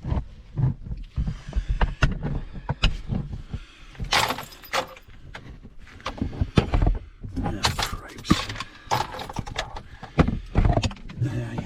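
Handling noise: rustling with a run of irregular clicks and knocks as objects are moved and set in place.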